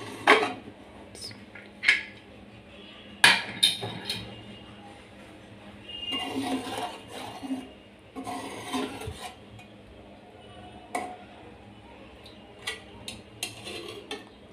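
Metal pressure cooker lid clanking as it is turned and lifted off, with several sharp knocks in the first few seconds. This is followed by a spoon scraping through the pot and tapping lightly against it.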